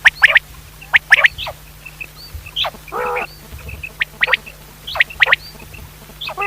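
Common quail calling: short, sharp notes in quick groups of two or three, about one group a second, with a lower raspy call about three seconds in. A low steady hum runs underneath.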